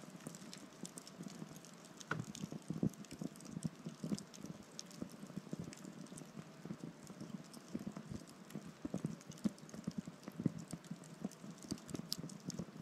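Wood campfire crackling and popping in irregular small snaps over a low, steady burning hiss.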